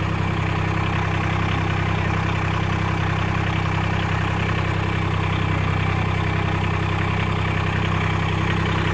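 Massey Ferguson GC1710 sub-compact tractor's three-cylinder diesel engine running at a steady speed.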